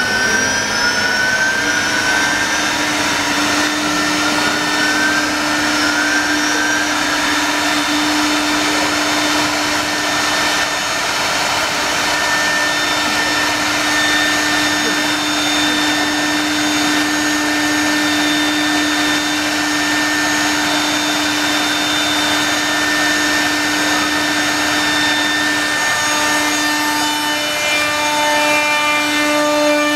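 Six-spindle CNC wood router running, its spindles whining over a dense hiss of cutting and machine noise. Several rising whines come in the first few seconds, then a steady whine holds, and more tones join near the end as the heads cut into the wood, throwing off dust.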